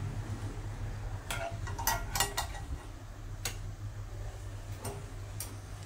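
Metal wire-mesh skimmer spoons clinking against a saucepan and each other as boiled potato chunks are scooped out: several light clinks, most of them about two seconds in. A steady low hum lies underneath.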